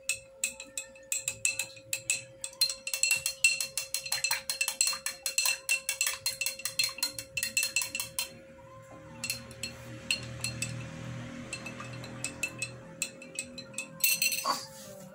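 Metal spoon clinking rapidly against a drinking glass while whisking an oil-and-honey salad dressing, the glass ringing with each strike. The clinking breaks off about eight seconds in, leaving a softer low sound with only scattered clinks, and picks up again briefly near the end.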